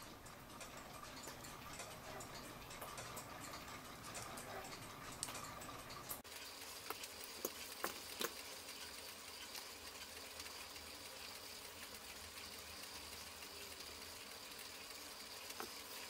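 Faint room tone with a few light clicks and taps from handling a clock movement, most of them bunched together about seven to eight seconds in.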